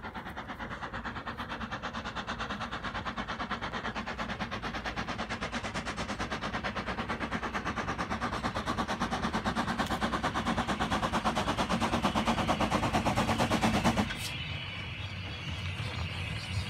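Small industrial steam locomotive working under steam, its exhaust beats coming rapidly and evenly and growing louder as it approaches. About fourteen seconds in the beats stop abruptly, leaving a quieter rumble.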